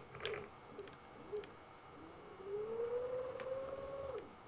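Stepper motors of a 3D-printed robot arm whining as a joint lifts a 0.5 kg payload: a faint tone that rises slowly in pitch for about two seconds, then drops away and stops, with a few small ticks.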